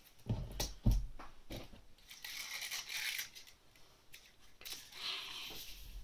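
Plastic glitter gift ribbon being pulled off its spool, a rustling hiss heard twice, after a couple of low knocks from the spool being handled on the cutting mat.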